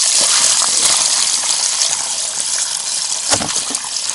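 Water gushing steadily out of a tipped plastic bucket and splashing onto the ice, with one dull knock a little past three seconds in.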